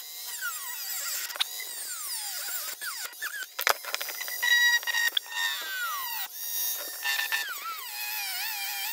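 Rotary tool with a small cut-off wheel grinding through the metal arms of a Zeiss Ikon Netar folding camera. It gives a high-pitched whine that repeatedly sags and climbs in pitch as the wheel bites into the metal and frees up, with one sharp click a little past a third of the way through.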